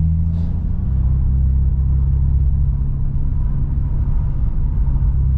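Nissan Skyline R32 GT-R's twin-turbo straight-six engine running under way, heard from inside the cabin as a steady low drone; its note drops about a second in, then holds steady.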